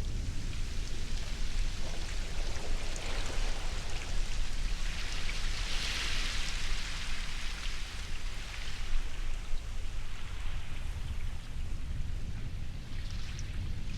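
Ocean surf: a continuous wash of waves over a steady low rumble, with one wave swelling up and breaking about six seconds in.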